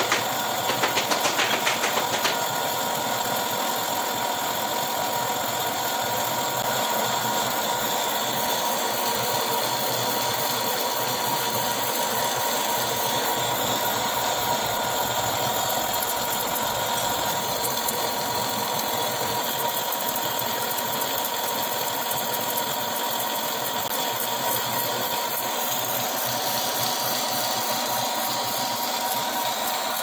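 Metal lathe running, its tool cutting a spinning steel clutch-housing disc with a steady whine. A rapid rattle sounds over it for the first couple of seconds.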